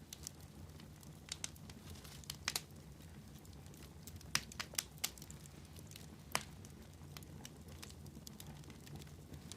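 Logs crackling in a bonfire: irregular sharp pops and snaps, a few louder ones in the middle, over a steady low rumble.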